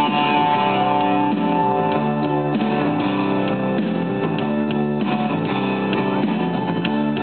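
Music led by guitar, with held notes that change every second or so over a steady bass.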